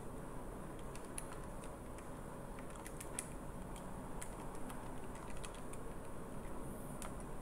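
Light, irregular key clicks as a calculation is keyed in, over a faint steady background hum.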